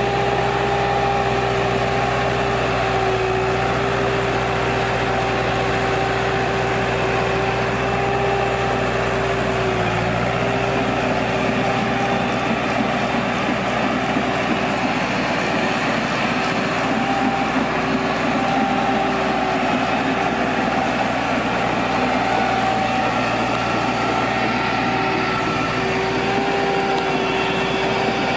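Tractor engine running steadily, driving a mounted hydraulic pruning machine, with a steady whine over the engine.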